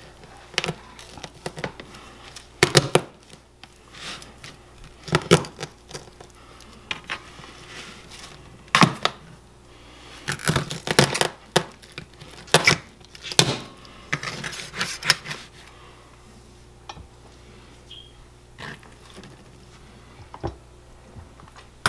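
Large kitchen knife chopping through a raw rabbit onto a plastic cutting board: irregular sharp knocks, some in quick clusters, with quieter cutting and handling between. The strikes thin out in the last few seconds.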